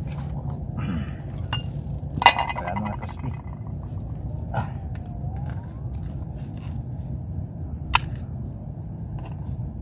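A metal pot lid and spoon clinking against a cooking pot as food is scooped out. There is a sharp metallic clatter with a brief ring about two seconds in and another sharp clink near the end, over a steady low rumble.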